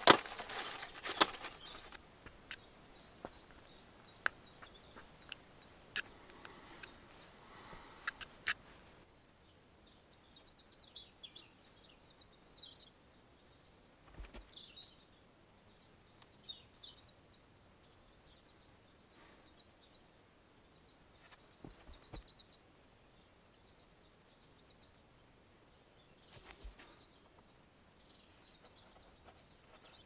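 Scattered sharp clicks and light knocks of small plumbing fittings and tools being handled on a wooden workbench. About nine seconds in it turns quieter, with faint, scattered bird chirps and a few soft taps.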